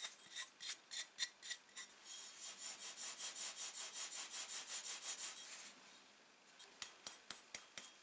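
Axe blade rubbed back and forth against the palm of a hand, giving dry rasping scrapes. The first two seconds hold a string of separate strokes, then a quicker, steady run of strokes follows for a few seconds, and a few light clicks come near the end.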